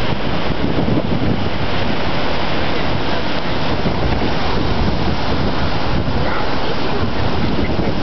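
Strong gusting wind from the remnants of Hurricane Ike, rushing through trees and buffeting the microphone: a loud, continuous rush of air with a heavy low rumble.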